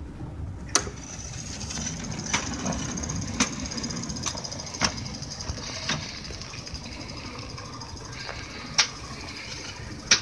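5-inch gauge miniature locomotive running along its track: a low rumble and a steady high whine, with sharp clicks from the wheels on the rails every second or so. The whine fades about eight seconds in, and the clicks continue.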